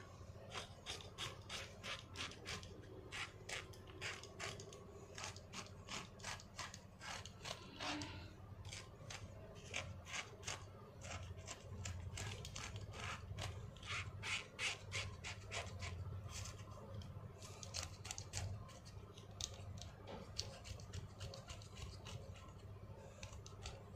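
A utility-knife blade scraping thick, dry, cracked skin off a heel in quick, repeated short strokes.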